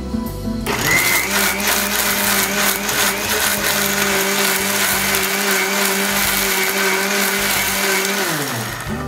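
Electric mixer grinder (mixie) grinding a fried onion mixture to a fine paste. The motor switches on about a second in, runs steadily, and winds down with falling pitch near the end.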